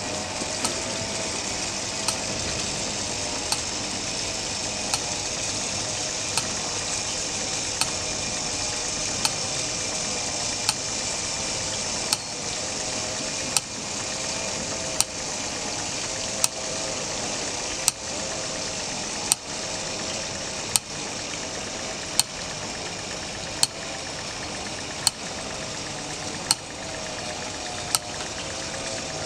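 The mechanism of a moving nativity scene running: a steady hiss with a sharp click about every one and a half seconds.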